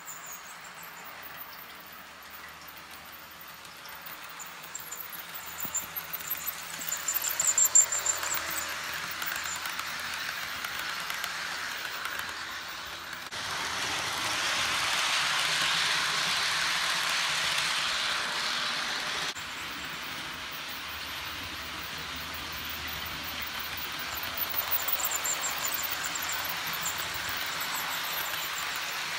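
Model passenger train running along layout track: a steady rolling hiss of small metal wheels on rail, with a run of quick clicks a few seconds in and a louder stretch in the middle.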